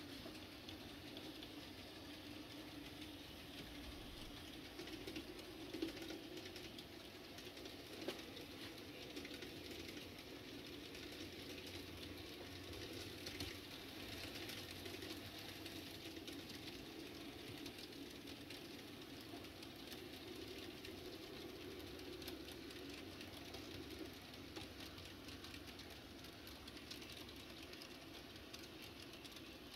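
Faint, steady whir of N-scale model locomotives running along the track, with a few small clicks from the wheels.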